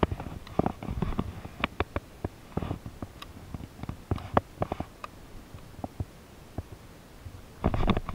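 Irregular clicks and knocks from handling a baitcasting rod and reel close to the camera, ending in a burst of rustling about a second before the end as the camera moves.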